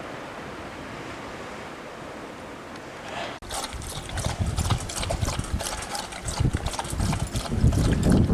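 Wind and surf on the beach for the first three seconds or so, then a cut to a dog taking a treat or drink close to the microphone: quick irregular wet clicks and low thumps from its mouth.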